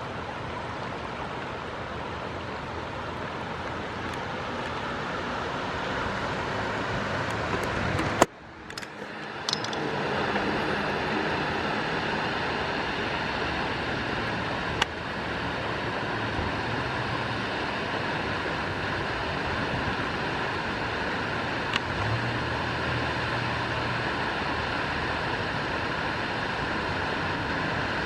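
Steady rush of water flowing down a desert wash. About eight seconds in, it cuts out briefly with a few clicks, then comes back; a couple of sharp clicks follow later.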